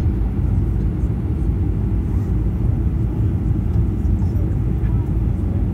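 Steady low rumble inside the cabin of a Boeing 737-800 on its landing approach: its CFM56 jet engines and rushing air, heard from a window seat over the wing.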